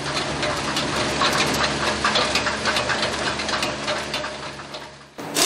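Small tractor engine running steadily while the tractor drives unmanned over a ring of ridged concrete steps, with irregular rattling and clatter from the machine as it goes over the ridges. The sound fades away toward the end.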